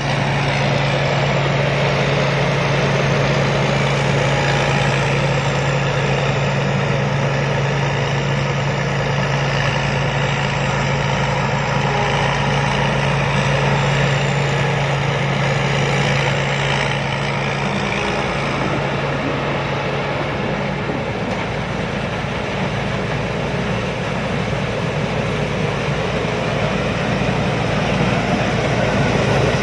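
Rice combine harvester's engine running steadily. A deep, even hum drops away roughly two-thirds of the way through while the machine keeps running.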